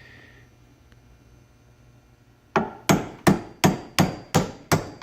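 Hand hammer tapping a steel retaining pin into an excavator bucket tooth, about seven sharp metallic strikes at a steady pace of roughly three a second, starting about two and a half seconds in, each ringing briefly.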